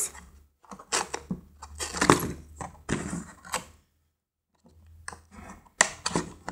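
Fingers picking at, scraping and tearing the cardboard backing of a toy's blister pack: irregular scratching and tearing noises with small knocks, broken by a brief silent gap about four seconds in.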